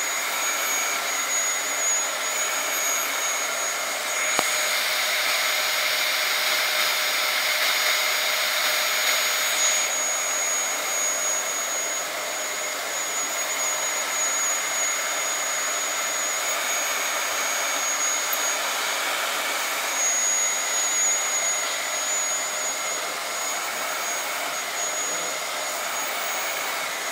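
Vacuum cleaner running steadily, its motor giving a constant high whine over the rush of air. A click comes about four seconds in, and the hiss is brighter for the next several seconds before settling back.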